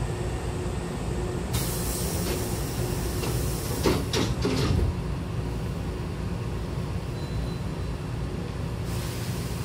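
Hankyu 6000-series train's double sliding doors closing. A hiss starts about one and a half seconds in, and the door leaves meet with a few knocks around four seconds in, over the steady low hum of the standing train. Another hiss starts near the end.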